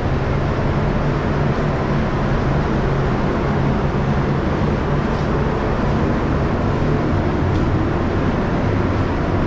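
Steady machine drone: a low hum under an even hiss that does not change.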